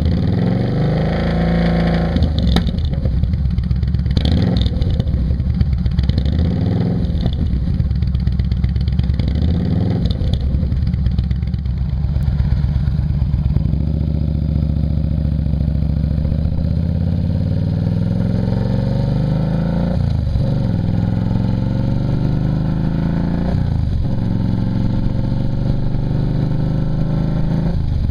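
Yamaha V-Star 950's V-twin running through a Rush slip-on muffler with a 1.75 baffle, revving up and down, then pulling up in pitch as it accelerates, with two short drops at gear changes late on.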